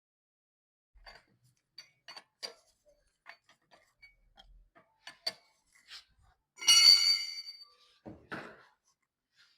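Light metallic clicks and clinks of tools and parts being handled, then a loud metal clang that rings briefly about seven seconds in, followed by a couple of duller knocks.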